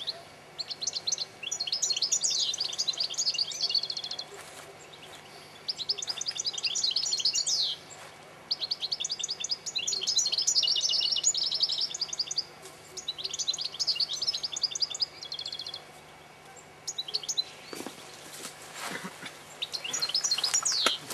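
European goldfinches singing: several bursts of rapid, high twittering, each a couple of seconds long with short pauses between. Near the end comes a brief rush of noise.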